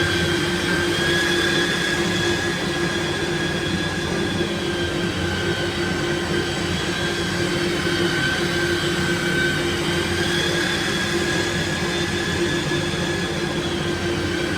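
Makita belt sander running steadily on wood, with a continuous motor whine whose pitch wavers slightly.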